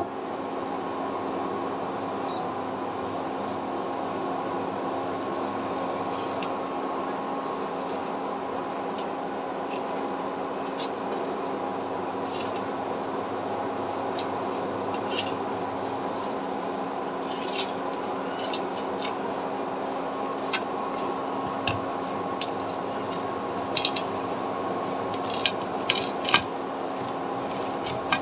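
Milk tea simmering in a pot on a turned-down stove: scattered small pops and clicks from the bubbling, more frequent toward the end, over a steady background hum, with one louder knock about two seconds in.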